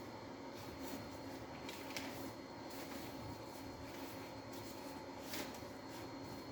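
Faint handling of vacuum cleaner parts: two short light clicks or scrapes, about two seconds and five seconds in, over a steady low hum in a small room.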